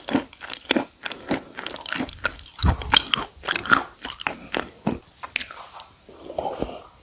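Close-miked biting and crunching of brittle broken white slate stone, many sharp crackles in quick succession, easing into softer chewing near the end.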